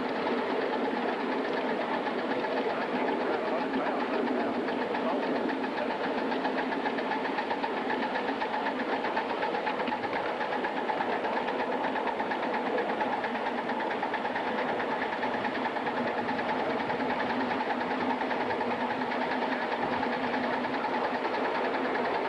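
Live steam Atlantic-type locomotive running on its track, with a steady, fast, even beat of exhaust and running gear.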